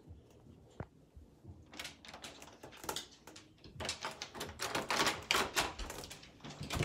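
Phone handling noise: an irregular run of clicks, knocks and rubbing against the microphone. It is sparse at first and grows denser and louder from about two seconds in.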